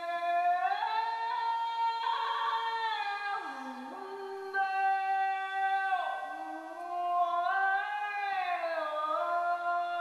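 Slow wordless music: two long held notes, one high and one low, sliding smoothly from pitch to pitch.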